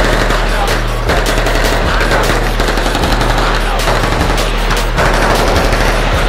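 Automatic gunfire from several guns at once, shots overlapping in a continuous rattle of rapid bursts.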